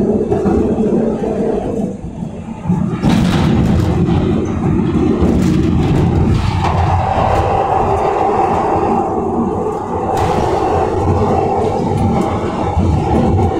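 An old Glasgow Subway train running through the tunnel: a steady, loud rumble of wheels on rail, with a short clatter about three seconds in and another near ten seconds. About halfway through, a steady whine rises out of the rumble and holds.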